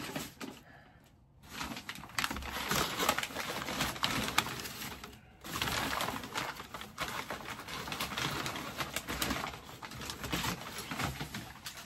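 Brown kraft packing paper rustling and crinkling as it is pulled out of a cardboard box, starting after a second or so and breaking off briefly about five seconds in.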